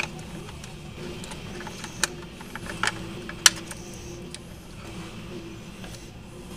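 Hands handling plastic servo-type wire connectors and leads in an RC crawler's electronics bay: several sharp plastic clicks, the loudest about three and a half seconds in, over a steady low hum.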